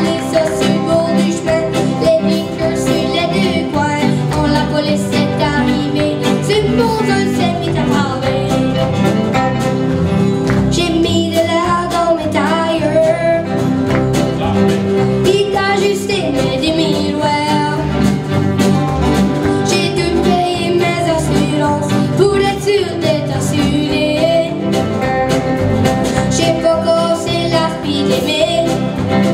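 A boy singing a French-language song, backed by strummed acoustic guitar and fiddle in a country style.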